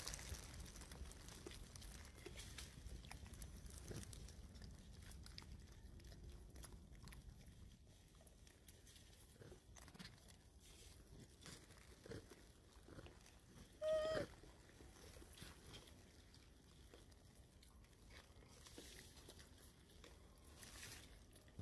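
Faint crunching and chewing clicks of a macaque eating a mango. About fourteen seconds in comes one short high-pitched squeak, the loudest sound.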